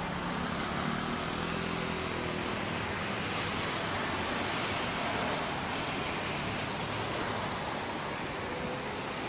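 Steady rushing noise of a Boeing 737 airliner's jet engines as it touches down and rolls out on the runway, swelling slightly about halfway through.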